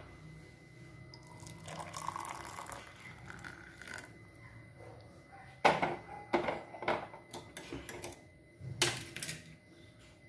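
Liquid pouring for a couple of seconds, then a run of sharp clinks and knocks of kitchen vessels, the loudest about halfway through and another near the end.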